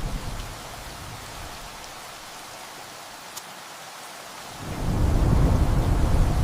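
Heavy rain falling steadily on a tin roof, with thunder: a low rumble fades out in the first half-second, and another, louder one rolls in about four and a half seconds in.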